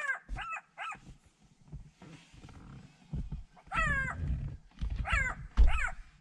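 Black-backed jackal yelping: about six short, sharply falling cries, three in quick succession, then a pause, then three more. Low rumbling thumps sound under the later cries.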